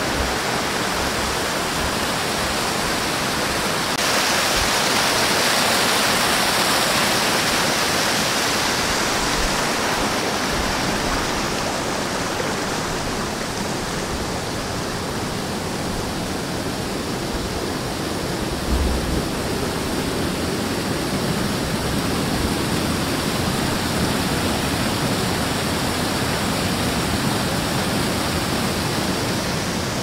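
Small waterfalls cascading over rock ledges into a river pool, a steady rush of water that grows louder and brighter for several seconds near the start. A brief low bump about two-thirds of the way through.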